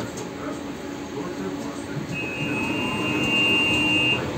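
Inside a halted tram, a steady high electronic beep lasting about two seconds begins halfway through: the tram's door warning signal. Under it runs the low hum and rumble of the car.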